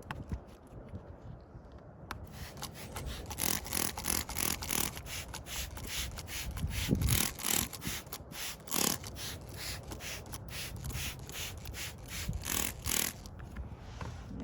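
Headlight lens being wet-sanded by hand with a sanding pad, in quick back-and-forth rubbing strokes, about two to three a second, to remove scratches and yellowing. The rubbing starts about two seconds in and stops shortly before the end.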